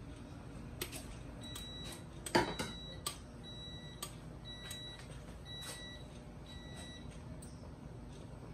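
Electronic appliance timer beeping: about six short, flat beeps roughly one a second, stopping about seven seconds in. Scattered light clicks run through it, with one louder knock about two and a half seconds in.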